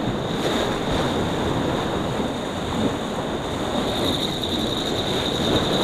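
Choppy sea washing against the rocks, with wind on the microphone: a steady rushing noise, with a thin high whine running through it.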